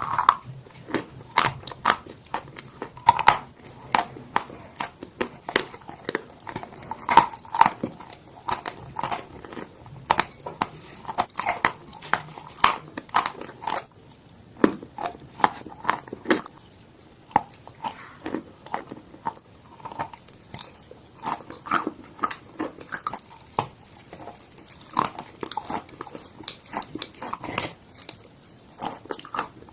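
Chalk being bitten and chewed close to the microphone: a run of irregular, sharp crunches and crackles.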